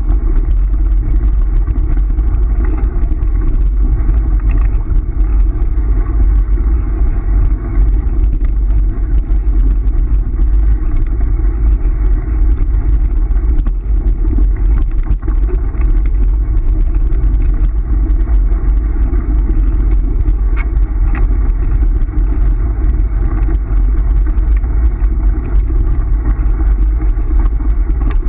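Dog scooter rolling over a gravel track: a steady, loud rumble from the wheels and frame on the loose stones, with wind buffeting the microphone of the camera mounted on the scooter.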